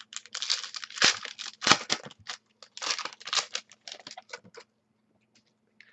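Trading-card pack wrapper being torn open and crinkled while the cards are handled: a run of crisp, irregular tearing and crinkling sounds that stops about four and a half seconds in.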